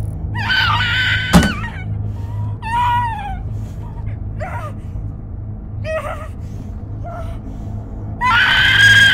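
A woman's screams: a long high scream near the start with a sharp thud in the middle of it, then short gasping and whimpering cries, then another long held scream near the end. A steady low hum runs underneath.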